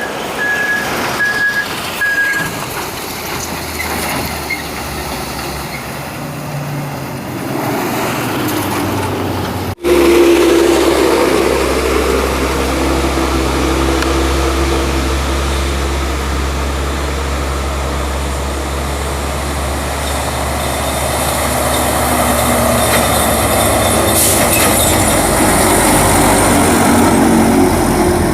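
Heavy truck engine running under load, with a few short high beeps near the start. About ten seconds in the sound cuts abruptly to a louder, steady engine drone that grows a little louder near the end.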